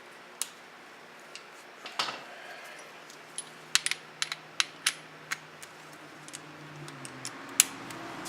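Light metal clicks and clinks of hand tools and sockets against the hub assembly. They come in an irregular scatter, busiest in the middle, with one sharper click near the end.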